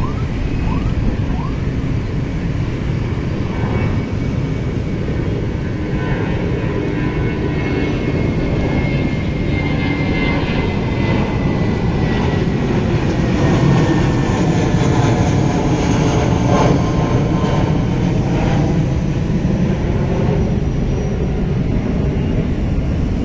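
Airbus A320-232 airliner climbing out after takeoff and passing overhead, its two IAE V2500 turbofan engines at climb thrust. It is a loud, steady jet rumble with a thin whine that falls slowly in pitch as the aircraft goes by, and it swells a little once the plane is past the overhead.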